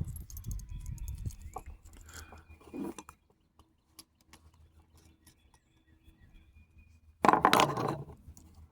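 Small clicks, crunches and rustling from handling a power-cord plug and its wires close up, strongest in the first three seconds and then faint, with a brief louder noise about seven seconds in.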